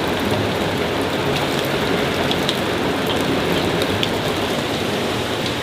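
Heavy rain falling steadily, with scattered sharp drop hits.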